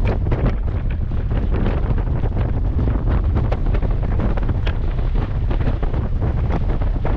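Airflow buffeting a camera's microphone under an open ram-air parachute canopy: a loud, steady wind rumble with constant ragged gusting.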